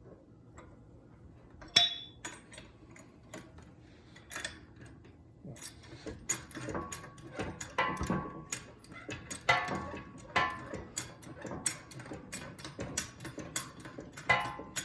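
Irregular metal clinks and clicks of bolts and hardware being handled against a steel skid plate. There is one sharp ringing clink about two seconds in, and the clinking grows busier in the second half.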